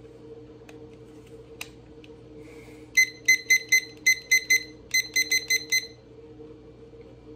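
Handheld digital timer beeping: about a dozen short, high, same-pitched beeps in three quick runs over about three seconds, preceded by a single click.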